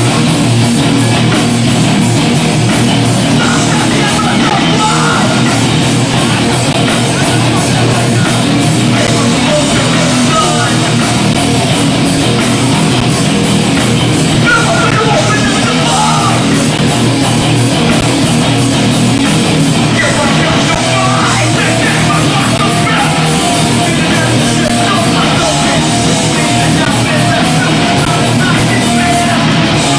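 Hardcore punk band playing live: loud distorted guitars, bass and drums with yelled vocals, played without a break, recorded through a camcorder's built-in microphone.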